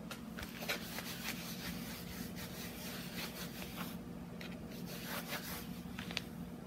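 Coated canvas of a vintage Louis Vuitton toiletry case being scrubbed clean by hand: a series of irregular rubbing strokes that stop a little after six seconds in.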